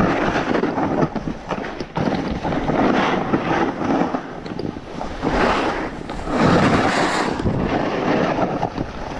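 Snowboard edges scraping and hissing across snow through a series of turns, rising and falling in repeated surges, with wind rushing over the microphone.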